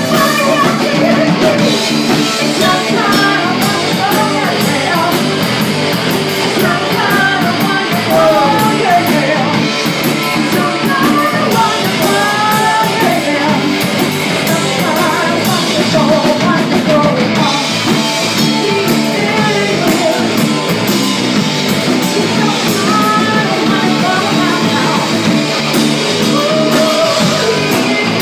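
Live rock band playing: a woman singing lead over electric guitar, electric bass and a drum kit, loud and continuous.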